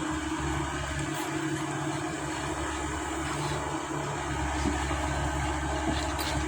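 Heavy construction machinery's diesel engine running steadily under load, with a low rumble that grows stronger about four seconds in.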